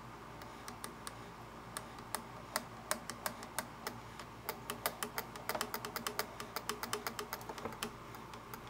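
Sharp, irregular metal clicks from a vintage Kenmore sewing machine's feed-dog drop mechanism as it is worked back and forth by hand and with a screwdriver, coming thicker and faster about halfway through. The mechanism is being freed from old oil that has gone gummy.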